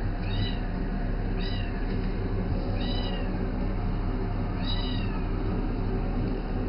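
A cat meowing four times, short high calls that rise and fall, over a steady low hum.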